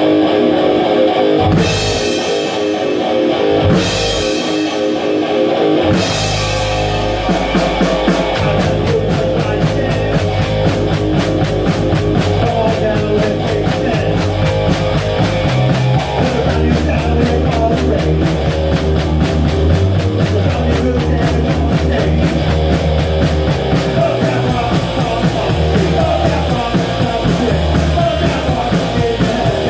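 Rock band playing live in a small room: electric guitar chords with a few crashing drum hits, then about seven seconds in the bass guitar and full drum kit come in with a fast, steady beat.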